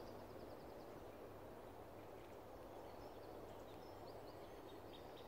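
Quiet woodland ambience: faint steady outdoor background noise with a few faint, high bird chirps, including a short quick trill near the start.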